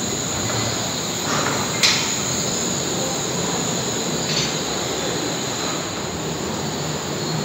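Wuppertal Schwebebahn suspension-railway car rolling slowly along its overhead steel rail, a steady rumble of its running gear. A sharp metallic click comes about two seconds in and a brief squeak about four seconds in.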